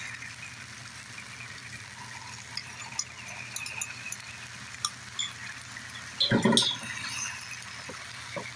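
Stir-fry vegetables sizzling steadily in a hot wok as sauce is poured in from a bowl, with small clinks of a spoon against the bowl and a louder knock about six seconds in.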